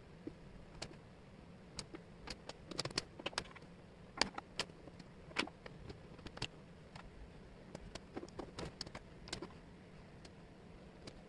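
Thin wooden jigsaw pieces clicking and tapping on a table and against each other as they are handled and fitted. The clicks are irregular and come in small clusters, over a faint steady hiss.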